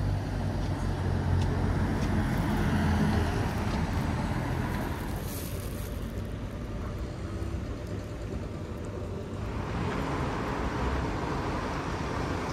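Road traffic on a street close by: a low engine rumble over the first few seconds, then the hiss of another passing car swelling about ten seconds in.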